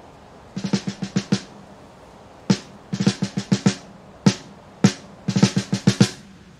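Snare drum played alone: quick runs of about six strokes, with single loud hits in between.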